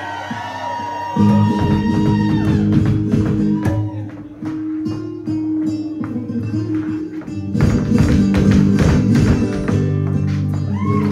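Live flamenco music: a sung phrase fades out in the first two seconds, then rapid flamenco footwork (zapateado), heeled shoes striking the stage, clatters over steady low instrumental notes. The footwork is densest and loudest from about one to four seconds in and again from about seven and a half to ten seconds.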